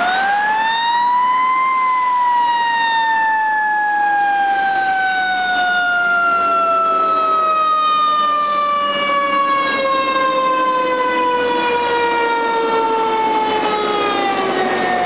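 Fire engine siren wailing as the engine approaches and passes. Its pitch rises over the first couple of seconds, then slides slowly and steadily downward for more than ten seconds, falling a little faster near the end.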